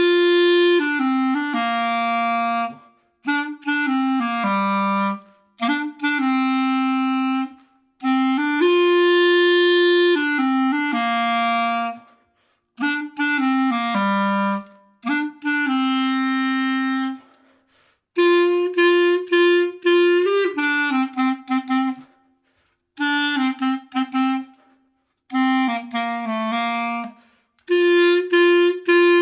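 Clarinet playing a simple children's song melody solo, in short phrases with breaths between them.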